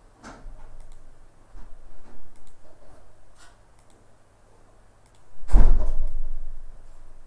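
A few soft clicks and knocks, likely computer mouse clicks, then a loud low thump with a rush about five and a half seconds in that fades over a second or so.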